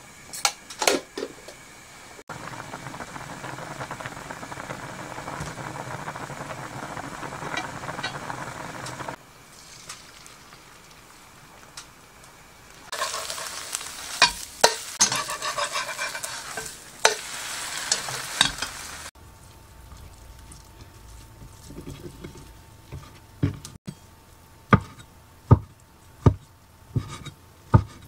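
A sequence of cooking sounds. A pot of soup broth simmers with a steady hiss, then egg white sizzles as it fries in a non-stick frying pan. Near the end a cleaver chops a rolled egg sheet on a wooden cutting board, with sharp chops about once a second.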